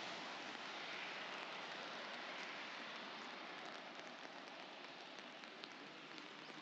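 Light rain falling on wet pavement: a soft, steady hiss with scattered drop ticks that grow more frequent in the second half.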